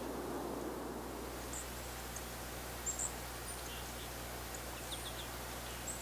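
Small songbirds giving short, high, scattered chirps over a soft steady outdoor hiss.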